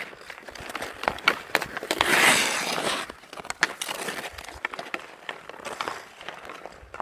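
Ice hockey skates carving and scraping on outdoor ice, with sharp clacks of hockey sticks on pucks and ice throughout. The loudest part is a hissing skate scrape lasting about a second, some two seconds in.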